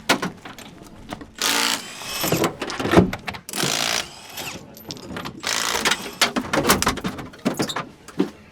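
Impact wrench (nut gun) rattling in three short bursts on the wheel nuts during a wheel change, with sharp knocks of tools and the wheel in between.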